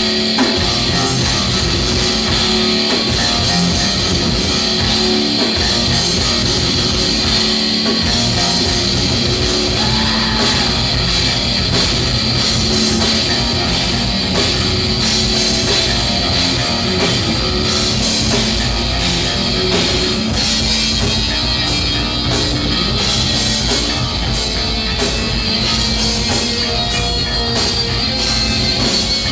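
Heavy metal band playing live: electric guitar, bass guitar and drum kit, loud and unbroken.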